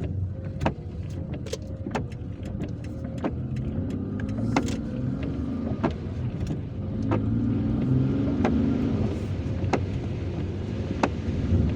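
Car driving in heavy rain, heard from inside the cabin: steady engine and road noise with many irregular sharp ticks of raindrops on the car, while the engine's hum swells twice.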